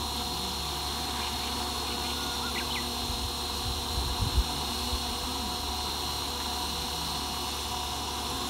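Goblin electric RC helicopter's motor and rotor blades running at a steady speed, a continuous whine of several fixed tones, during its first hover setup.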